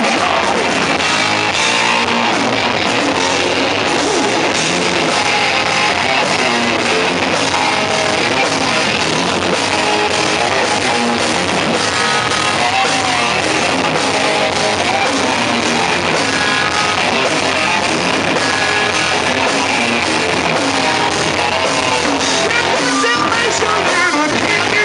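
Live hard rock band playing loud: distorted electric guitars through Marshall amps, bass guitar and drum kit, with a male lead vocalist singing into a handheld mic.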